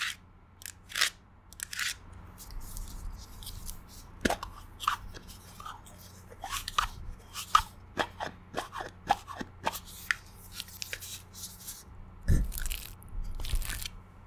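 Long press-on nails tapping and scratching on a plastic Vaseline tub: a quick, irregular series of crisp clicks, some with a short hollow ring. A heavier knock comes near the end.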